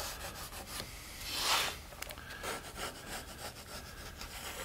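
Pencil lead scratching along a black walnut board while tracing around the edge of a wooden pattern, with one longer, louder stroke about a second and a half in.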